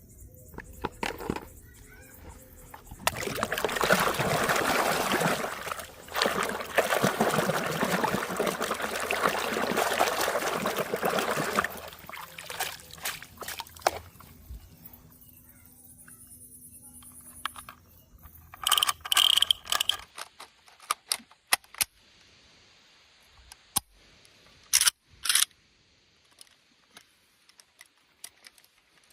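Water running or pouring, an even rushing for about nine seconds, then dying down. A few sharp clicks and knocks follow later, plastic toys being handled.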